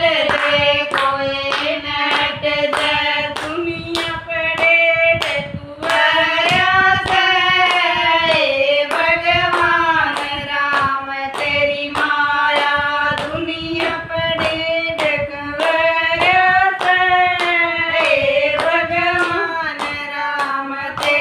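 Women singing a Haryanvi jakdi folk song together, keeping time with hand claps about twice a second.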